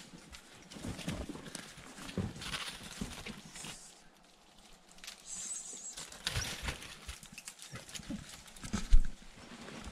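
Terrier moving about at the mouth of a badger sett, with irregular scuffing and scrabbling of its feet in snow and dry leaves. A sharp knock comes near the end.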